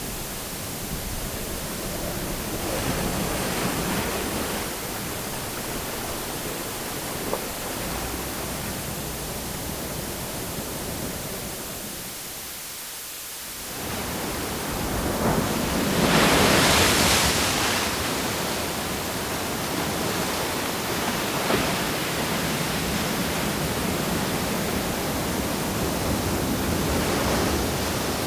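Waves washing onto a shore: a steady wash of water that swells now and then, most strongly about sixteen seconds in, with a brief lull just before.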